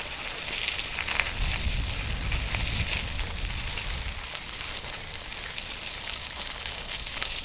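Bicycle tyres rolling over a gravel trail with a steady crackling crunch and a few small ticks, with wind rumbling on the microphone.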